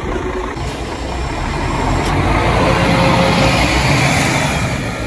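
Mercedes-Benz Citaro diesel city bus pulling away from a stop, its engine and tyre noise growing a couple of seconds in, then easing off as it moves away.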